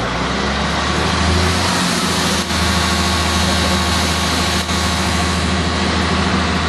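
Excavator diesel engine revving up and then running steadily at high revs while the boom lifts the bucket.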